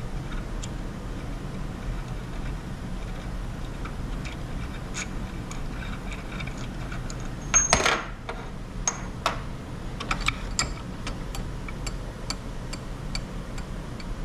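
A wrench working on a stainless steel weld-in bung clamped in a vise: light metallic clicks and ticks, with a louder ringing metal clank about eight seconds in and a run of clicks just after, over a steady low shop hum.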